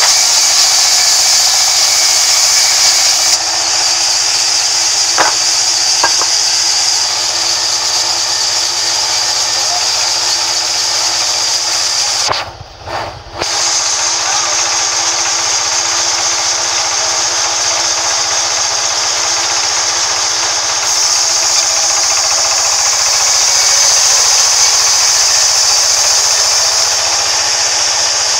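Band sawmill running, its narrow blade cutting lengthwise through a large wood slab: a steady high hiss over the machine's hum, which briefly cuts out about halfway.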